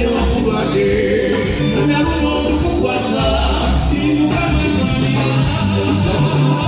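Band music with a singer's voice over a steady bass line.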